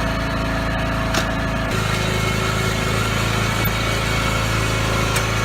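A riding lawn mower's engine runs steadily at close range. Its tone shifts slightly, with a stronger low hum, a little under two seconds in.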